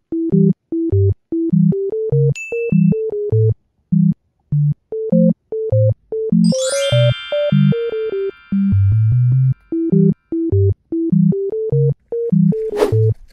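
Bouncy, staccato synthesizer background music, with a bass part and a higher part trading short notes in a steady beat. A short ding sounds about two seconds in, a rising glissando of ringing chimes about six seconds in, and a brief swish near the end.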